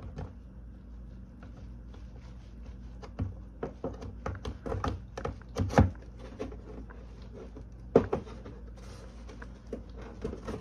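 3D-printed plastic nose section knocking and clicking against the model bomber's fuselage as it is pressed into place: a run of light taps, with two louder knocks, one a little past the middle and one about three-quarters through, over a steady low hum.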